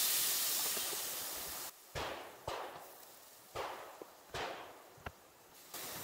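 Fajita meat sizzling loudly in a hot skillet on a camp stove, fading off over the first couple of seconds. Then come five short, sharp sizzles, about half a second to a second apart, as the food is turned in the pan.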